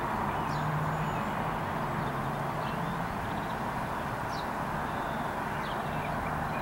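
Steady outdoor background noise with a low hum that fades out and back in, and a few faint high chirps.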